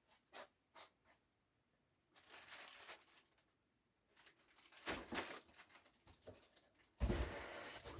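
Packaging being handled during unboxing: two light taps, then stretches of rustling and crinkling, loudest near the end.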